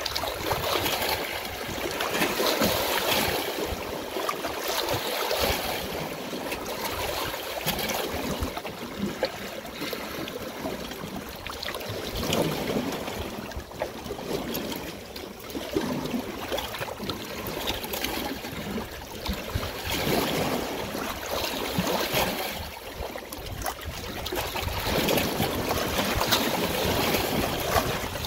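Water flowing steadily, its level swelling and easing every few seconds.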